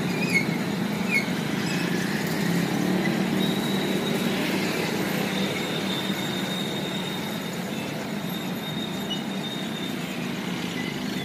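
Road traffic crossing a railway level crossing: motorcycles, a minibus and cars passing over the rails, their engines and tyres making a steady mixed noise. A thin, high, steady whine comes in about three seconds in and fades near the end.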